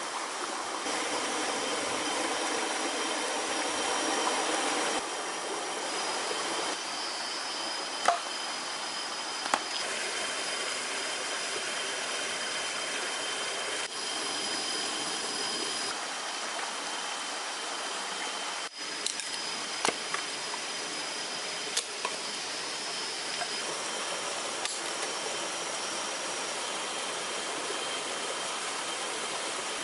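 Steady tropical-forest ambience with insects droning on a few constant high pitches, broken by a handful of sharp clicks and taps from a knife whittling wood.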